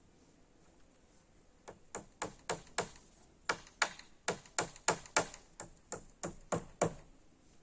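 A hammer striking in a quick run of about seventeen sharp knocks, roughly three a second, with a short pause partway through.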